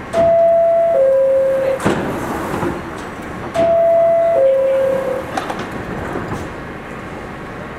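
R46 subway car door chime, a falling two-note ding-dong sounded twice, with a few clunks from the cars. The doors slide shut about five seconds in.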